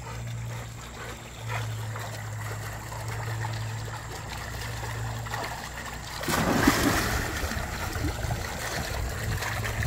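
A dog splashing into pool water about six seconds in, followed by sloshing and splashing water. A steady low hum runs underneath before the splash.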